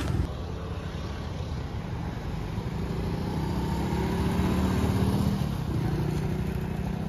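Road traffic with motorcycles riding past: engine running, its note rising and then falling as a bike goes by, about halfway through.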